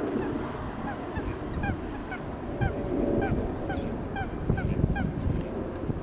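Birds calling: a quick run of short, downward-inflected calls, two or three a second, several birds together, over a low rumble of wind on the microphone.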